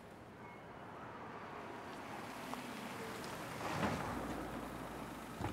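A car drives up and pulls in at the curb: tyre and engine noise swelling to a peak about four seconds in, then easing off. A short low thump comes just before the end.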